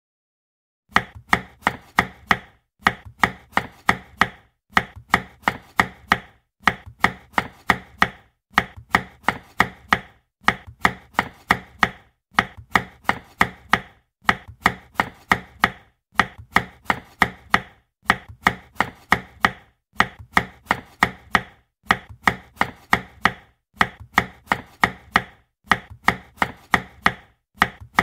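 Knife chopping food on a cutting board: quick runs of sharp knocks, about four strokes a second, each run lasting under two seconds with a brief pause between, starting about a second in.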